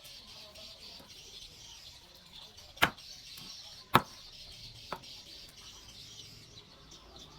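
Three sharp knocks or clicks, about a second apart, the middle one loudest, over a steady high-pitched hiss.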